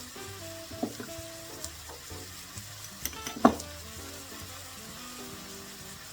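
Food sizzling as it fries in a pan, with a few sharp knocks as it is stirred. The loudest knock comes about three and a half seconds in.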